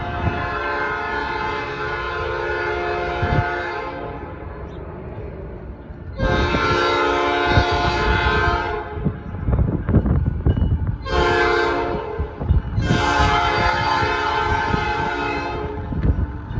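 Norfolk Southern locomotive air horn sounding two long blasts, one short and one long, the standard grade-crossing signal, over a low rumble.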